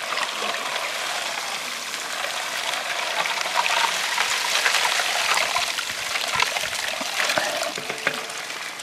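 Water tipped in at the head of a carpet-lined gold sluice box, gushing down the sluice and washing the gravel through. It swells in the middle and eases off near the end.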